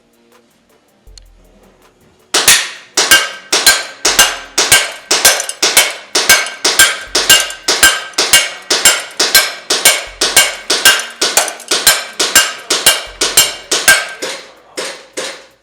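CO2-powered ASG CZ SP-01 Shadow ACCU airsoft pistol firing 0.3 g BBs in a long string of about thirty sharp shots, two to three a second, starting a couple of seconds in and stopping just before the end.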